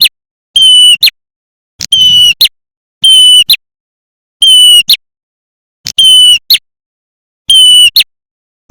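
Recorded prenjak lure call played back loud and distorted: a high half-second call note ending in a quick upward flick, repeated about every 1.4 s with dead silence between, seven times.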